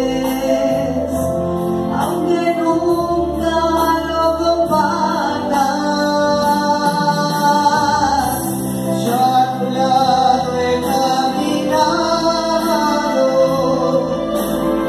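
A solo voice singing a Catholic meditation song into a microphone, with held notes that bend and glide, accompanied by sustained chords on an electronic keyboard.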